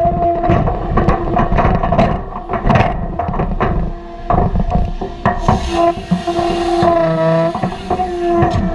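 Heavy logging machinery running with a steady whine, with repeated knocks and clatter of wood. About five and a half seconds in, a burst of hiss.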